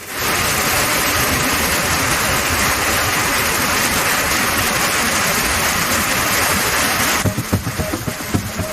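Heavy summer downpour rain as a dense, steady hiss. About seven seconds in it cuts off abruptly to a quieter sound with irregular low thumps.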